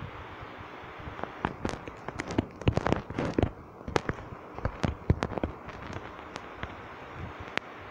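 Quick, irregular tapping clicks of fingers typing on a phone's touchscreen keyboard, picked up by the phone's own microphone over a steady hiss. The clicks start about a second in, bunch up thickly in the middle and thin out near the end.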